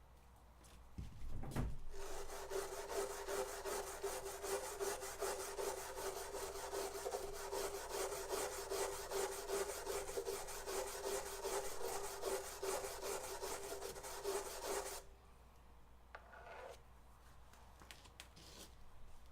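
A low thump, then steady abrasive rasping on the plastic filter tank with a steady hum under it, starting about two seconds in and stopping abruptly about fifteen seconds in: the seam being worked before the plastic weld.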